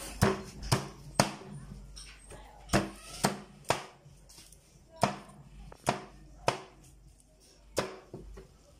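A meat cleaver chopping through roast chicken on a wooden cutting board: about ten sharp chops at an uneven pace, the first six in two quick runs of three.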